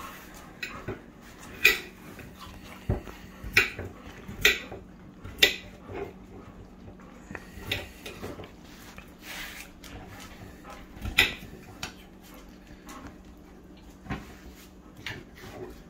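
Kitchen clatter: scattered short, sharp clicks and knocks, about a dozen irregularly spaced, over a faint steady hum.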